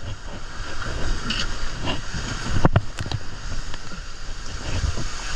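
Water rushing and splashing along a water-slide channel under a raft tube. There is a sharp thump almost three seconds in.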